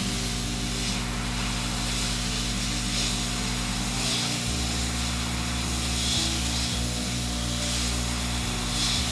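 Kendal hot-air desoldering station blowing a steady hiss of hot air out of its handpiece nozzle onto a surface-mount chip, heating the solder to lift the part off the circuit board.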